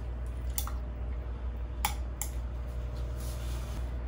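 Coffee poured over ice cubes in a glass, with three sharp ice clicks and cracks, the loudest just under two seconds in, over a steady low hum.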